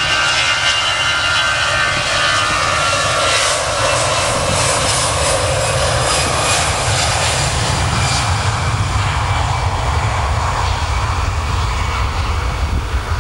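Airbus A320's two CFM56-5B jet engines at takeoff thrust during the takeoff roll. A high fan whine in the first few seconds gives way to a loud, steady rushing roar with a deep rumble as the jet moves off down the runway.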